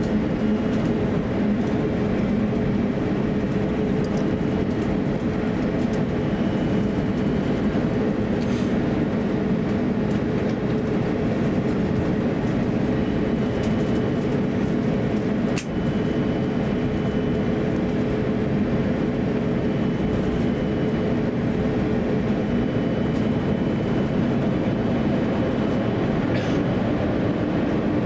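Airbus A350-900 cabin noise while taxiing: the Rolls-Royce Trent XWB engines at low taxi thrust and the cabin air give a steady hum with a couple of held low tones. A single faint click about halfway through.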